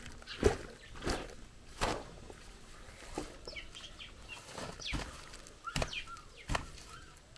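Irregular sharp knocks and rustling from handling a wet goat skin, about six over the few seconds, with short bird chirps in the middle and near the end.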